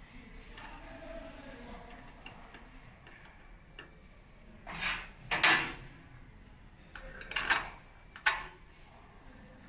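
Machine parts being handled: a few separate knocks and clatters, the loudest pair about five seconds in, then two more shortly after.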